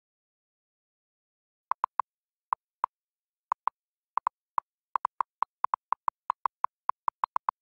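Electronic quiz-timer sound effect: short high blips, first in sparse pairs about a second and a half in, then coming faster and more closely together.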